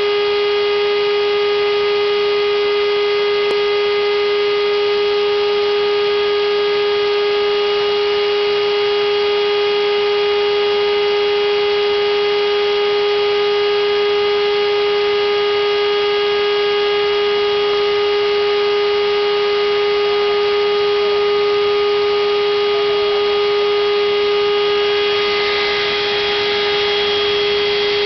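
CNC router spindle motor running at a steady speed: a constant high whine with overtones. A short burst of hiss comes about 25 seconds in.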